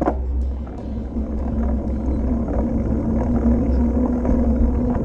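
Wind buffeting the microphone and the rolling rumble of a mountain bike riding along a smooth paved cycle path, with a steady low hum.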